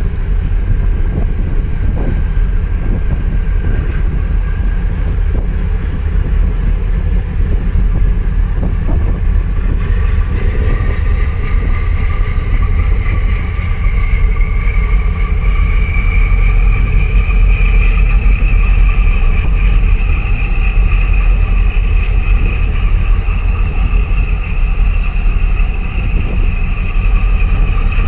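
A boat's engine running under way with a heavy low rumble and wind buffeting the microphone; from about ten seconds in a whine rises slowly in pitch and then holds steady.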